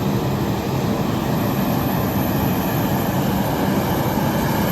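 Jet airliner engines running with a steady, loud noise and a thin high whine, most likely the twin turbofans of an Embraer E190.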